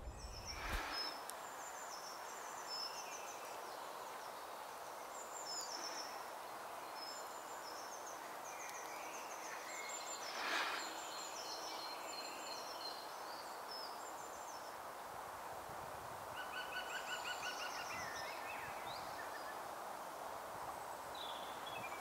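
Small songbirds singing, many short high chirps and trills over a steady background hiss, with one short louder sound about halfway through.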